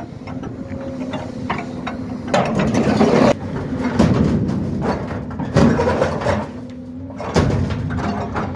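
Excavator diesel engine running steadily, with loud clanks and scraping of steel as an excavator's attachment bites into and drags at a large steel tank, several times.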